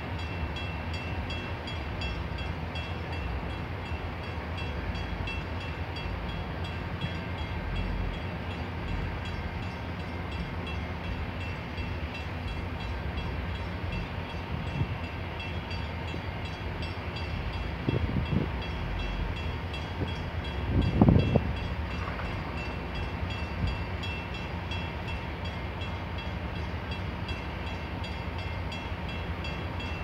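Steady low engine rumble of idling vehicles, with faint steady tones above it. A short louder swell comes about two-thirds of the way in, and a stronger one a few seconds later.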